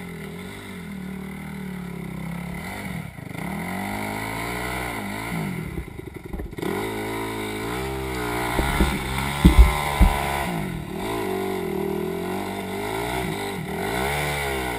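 Off-road vehicle engine revved up and down over and over as it labours up a rocky hill climb. A few loud knocks about two-thirds of the way through, as the vehicle bangs over rock.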